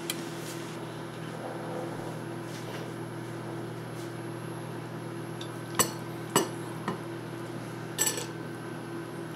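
Metal serving spatula clinking and scraping against a pot and a bowl as venison stew is dished up, a few sharp clinks about six to eight seconds in, over a steady low hum.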